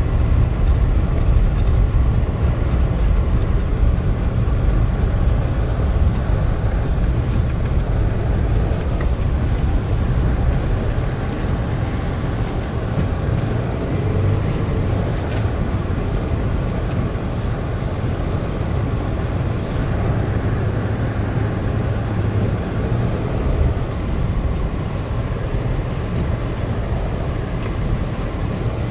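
Steady low rumble inside a car driving on a snow-covered road, the engine, tyres and wind on the body blending into one even noise.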